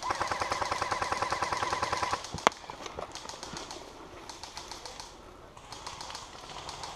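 Airsoft STG 44 electric gun firing a full-auto burst, a rapid even chatter, which stops about two seconds in. A single sharp crack follows, then fainter rapid fire from further off.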